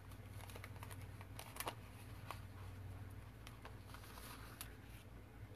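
Faint handling of sheets of tracing paper being laid flat and adjusted: scattered light ticks and soft rustles over a steady low hum.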